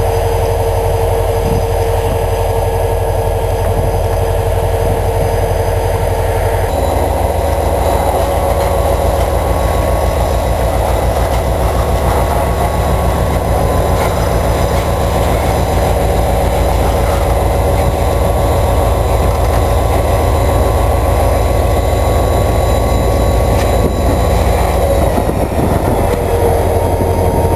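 Freight train moving slowly: autorack cars roll by with a steady rumble, and the diesel locomotive's engine runs as it draws near. A steady tone heard at the start stops about seven seconds in.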